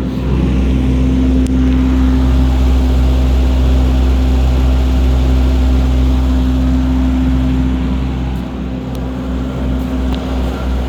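Flux-core wire welding arc with self-shielded Lincoln NR-233 wire, burning steadily at 27 volts over the steady hum of the welding machine. It eases off slightly near the end.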